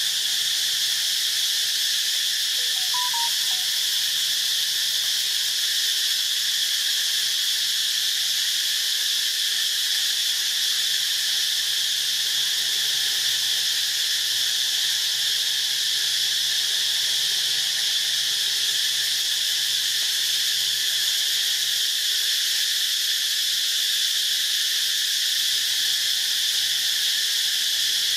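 Insects droning in chorus: a continuous, even, high-pitched buzz with no breaks.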